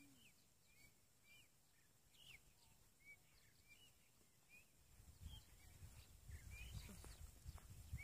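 Faint chirping of small birds: short, quick calls repeating a few times a second. About five seconds in, a low, uneven rumbling noise comes up underneath.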